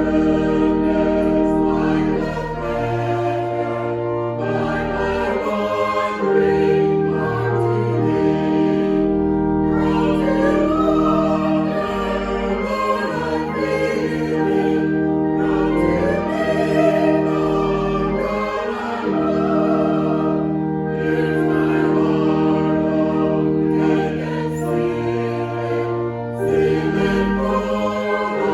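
Choral music: a choir sings a slow hymn over sustained accompanying chords.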